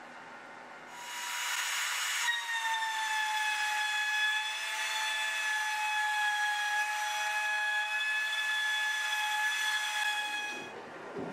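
CNC router spindle starting with a rush of air about a second in, then running with a steady high whine while it cuts out a thin .016-inch sheet skin. The whine stops just before the end.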